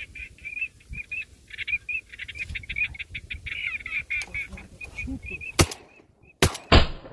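A flock of ducks calling in many rapid, high, wavering notes. Near the end, three loud shotgun shots ring out, the last two close together.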